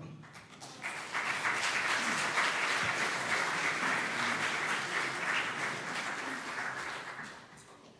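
Congregation applauding in a church hall. The clapping builds about a second in, holds steady, and dies away near the end.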